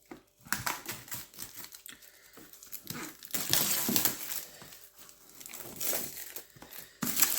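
Plastic wrapping being torn open and crinkled off a boxed book, in a run of irregular crackles that is loudest about halfway through and again near the end.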